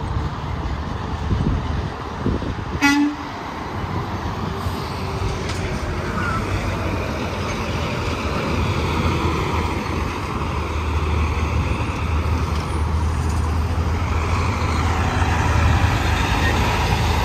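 Steady highway traffic noise from passing vehicles. A brief horn toot sounds about three seconds in, and a low engine drone builds through the second half as a heavy vehicle draws near.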